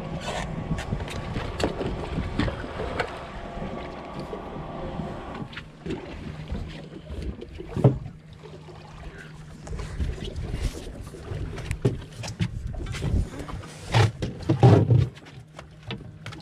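Steady machine hum of a boat on the water, with wind on the microphone and scattered knocks and clicks from rods and reels being handled on the deck, the loudest knocks about eight seconds in and near the end.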